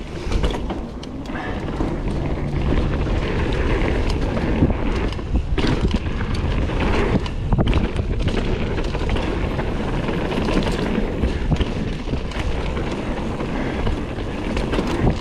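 Kona Process 153 full-suspension mountain bike riding a dirt trail: a steady rush of wind on the camera microphone with tyre noise and frequent short clatters and knocks as the bike rolls over bumps.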